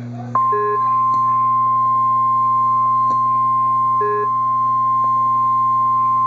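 NOAA Weather Radio's 1050 Hz warning alarm tone: a loud, steady single-pitched tone that starts about half a second in and holds, the alert signal that comes before a tornado warning broadcast. A short, lower beep from another device sounds twice, about three and a half seconds apart.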